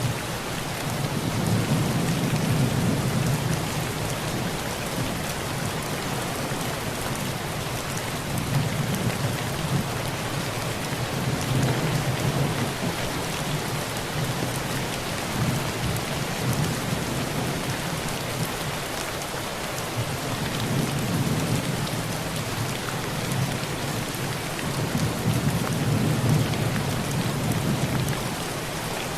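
Heavy rain drumming steadily on a tin roof, with low thunder rumbles swelling and fading several times.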